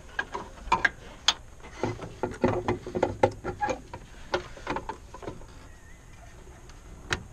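Irregular plastic clicks and knocks from hands fitting an LED headlight bulb and its parts into the back of a truck's headlight housing. The clicks come thickest in the middle, with one sharp click near the end.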